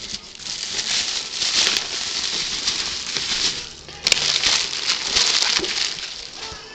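Plastic bubble wrap crinkling and rustling as it is handled and pulled back inside a cardboard box, with a sharp click about four seconds in.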